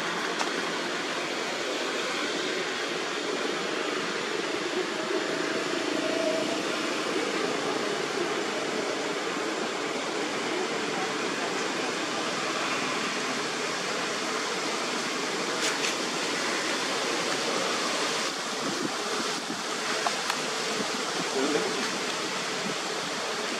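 Steady outdoor background hiss with faint distant human voices.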